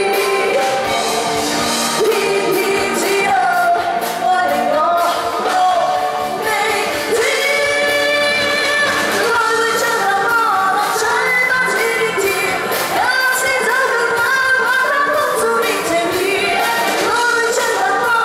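A woman sings a Cantonese pop song live through a handheld microphone over loud instrumental backing with a steady beat.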